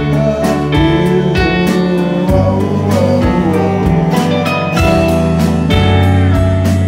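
Live rock band playing a passage between vocal lines, with strummed acoustic guitar, electric guitars, a Mellotron M4000D Mini keyboard, bass and a drum kit keeping a steady beat.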